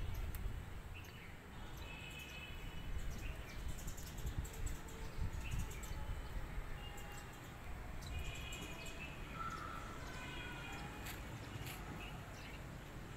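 Small birds chirping in short scattered calls over steady outdoor background noise with a low rumble, plus a few faint clicks.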